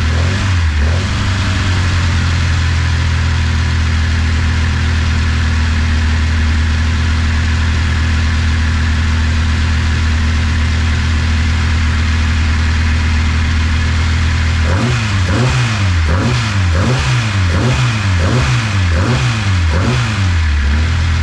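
Freshly built Classic Mini 1330 A-series four-cylinder engine running with a rattle from the idler gears. Near the start it is briefly revved, and about two-thirds of the way through it is blipped on the throttle about seven times in quick succession, each rev rising and falling back.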